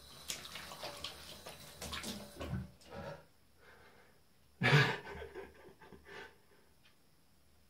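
Water dripping and spattering in an empty enamel bathtub around a freshly bathed, wet cat, mostly in the first three seconds. A short, loud, low voice sound comes about halfway through.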